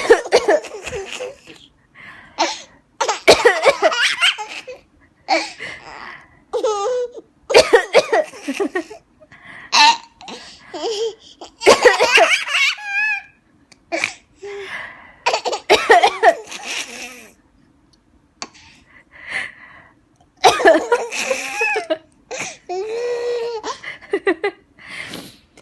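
A young child laughing in repeated high-pitched fits, with coughs mixed in: coughing that keeps breaking into laughter.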